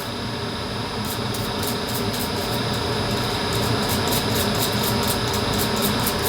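Scratchy scrubbing and rubbing as the parts of a clipper blade are cleaned of hair and grime, with many quick irregular clicks.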